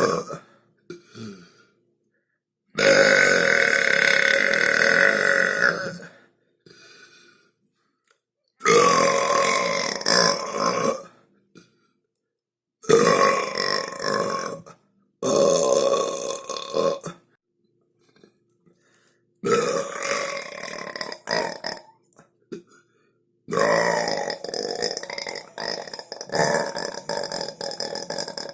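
A string of about six long, loud human burps, one after another, each lasting two to five seconds, with short silent gaps between them.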